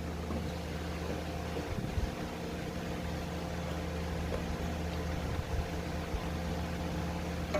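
A steady low mechanical drone, with a few faint knocks about two seconds in and a click near the end.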